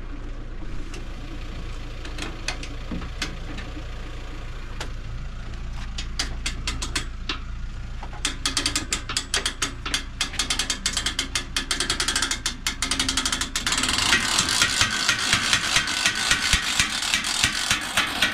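Ratchet of a boat trailer's hand winch clicking, the clicks sparse at first and then coming faster and denser until they run into a continuous rattle with a hiss over it in the last few seconds.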